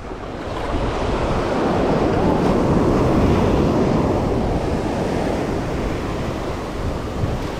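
Surf washing up the shore: a wave rushes in, swelling for about three seconds and slowly easing off, with wind buffeting the microphone.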